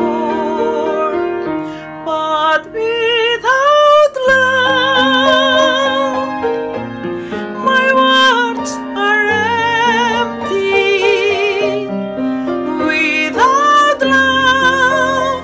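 A woman singing a slow sacred song in English with wide vibrato, accompanied on piano. Some notes scoop up into pitch and are held for a second or more, over steady piano chords.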